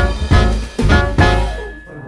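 Background music with a steady beat, ending on a final chord that rings on and fades out near the end.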